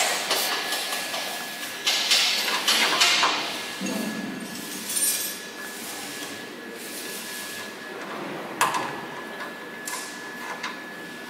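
Metal knocks and clatter from hand work on a generator set's radiator frame, busiest about two to three and a half seconds in, with a single sharp knock later on.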